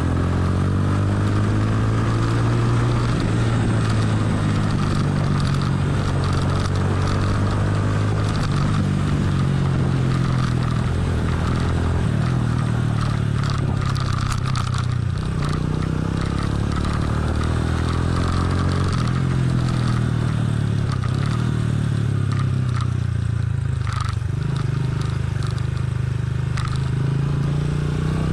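Motorcycle engine running as the bike is ridden, its pitch rising and falling with the throttle, with a few knocks and rattles as it rides over a road full of potholes.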